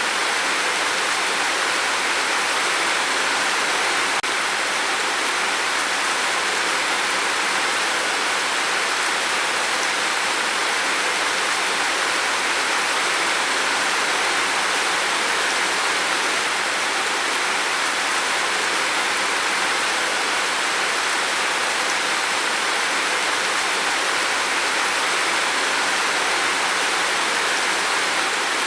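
Heavy rain falling steadily on a roof, a dense, even hiss of drops with no breaks.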